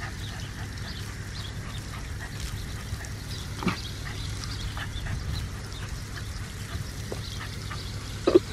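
A corgi chasing and snapping at a garden hose's spray makes a few short vocal sounds, the loudest near the end, over the steady noise of the water.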